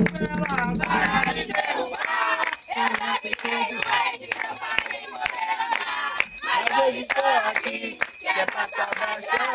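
Voices singing over jingling percussion like a rattle or bells, with sharp percussive strikes. A low droning sound underneath stops about a second and a half in.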